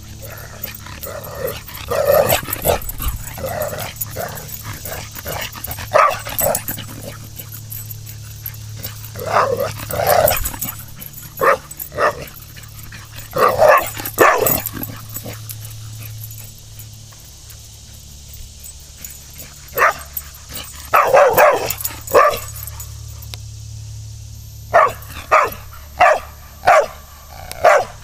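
Entlebucher Sennenhund barking: scattered single barks and short runs at first, then a steady string of barks at about two a second near the end.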